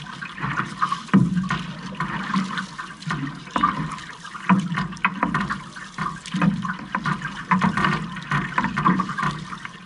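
Outrigger canoe paddles dipping and pulling through the water, with water rushing and sloshing along the hull in repeated splashes about once a second.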